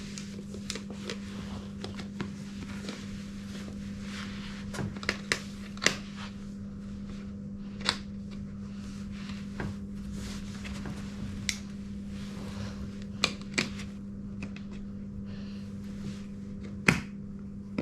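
Scattered clicks and knocks of a shoe being handled and pushed onto a detachable roller-skate plate, over a steady low hum.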